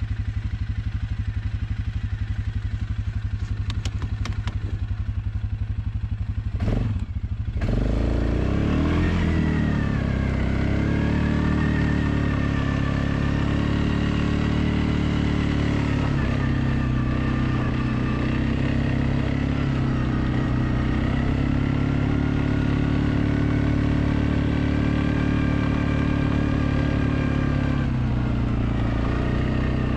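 An engine running steadily, with a brief break and change in pitch about seven seconds in, then a slightly wavering drone.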